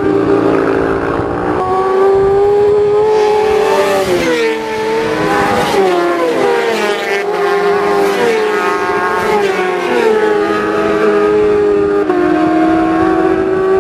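Racing motorcycles at high revs passing along the road, engine pitch climbing through the gears and dropping as each goes by. Several bikes overlap in the middle, and one engine holds a steadier note near the end.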